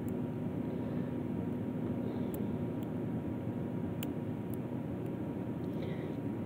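Steady low background hum, with a few faint light clicks from a lock pick and tensioner working the pin stack of a Master Lock 150 padlock.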